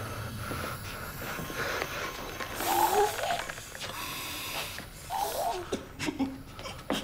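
A young man's muffled cries and heavy breathing through a gas mask forced over his face, with one outburst about three seconds in and another a couple of seconds later.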